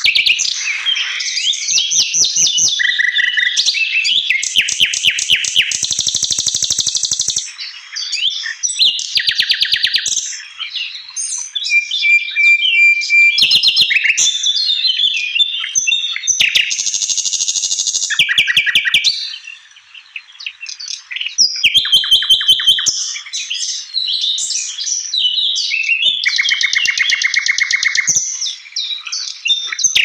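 Brown-chested jungle flycatcher song: fast rattling trills of rapidly repeated notes alternating with varied high chirps and short whistles, almost without pause. There are brief lulls about a quarter and two-thirds of the way through.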